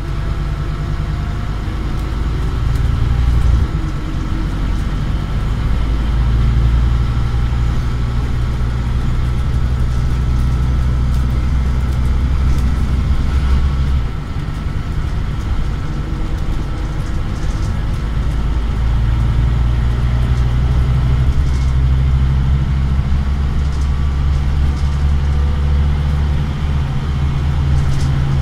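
Scania OmniCity single-deck bus engine running under way, heard from inside the passenger saloon. The low engine note eases off about fourteen seconds in and builds again about five seconds later.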